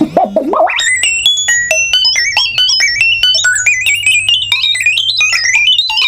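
Circuit-bent lullaby sound chip from a stuffed elephant toy, its pitch bent by a potentiometer. The tone sweeps up over about the first second, then plays the sample melody as a fast run of high, stepped electronic notes with clicks between them.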